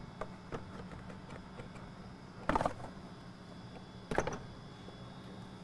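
The stock plastic airbox of a Ram 6.7L Cummins being handled and worked loose in the engine bay. Light plastic clicks, then two louder clunks: one about halfway through and one near the end.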